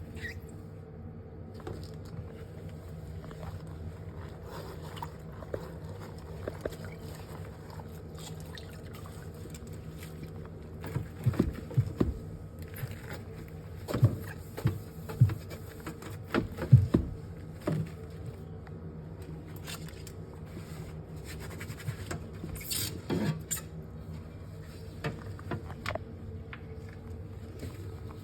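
Clatter of things being handled while a fridge is cleaned out: scattered knocks and scrapes, busiest in the middle and again near the end, over a steady low hum.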